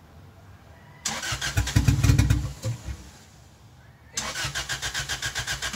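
Turbocharged Toyota 1ZZ four-cylinder in a 7th-gen Celica being cranked by its starter. About a second in, it cranks, catches briefly and dies. A second bout of cranking near the end doesn't catch. The owner puts its failure to run on its own down to a stock naturally aspirated Power FC map running far too rich for the 630cc injectors.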